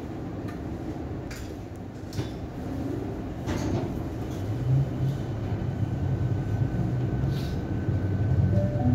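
Siemens Nexas electric train running on the track: a steady low rumble with a few sharp knocks. A low hum comes in about halfway and the sound slowly grows louder.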